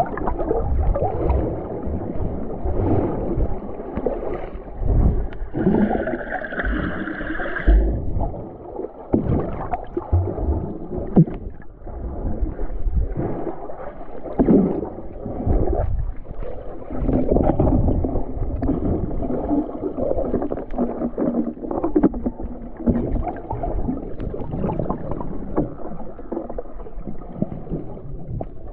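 Muffled underwater noise heard from below the surface: water sloshing and gurgling with irregular low thumps, and a brief higher hiss about six seconds in.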